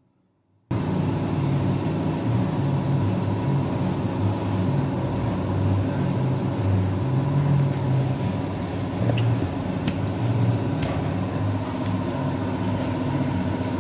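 Car engine running with a steady whining tone over its rumble, cutting in abruptly under a second in, with a few sharp ticks later on. This is the noise from the A/C compressor pulley, metal rubbing on metal, a warning that the pulley could seize and block the auxiliary belt.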